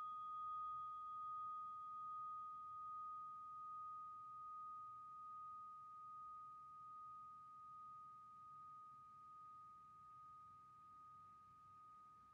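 A struck meditation bell ringing out in one clear high tone, fading slowly with a gentle wavering pulse about once a second.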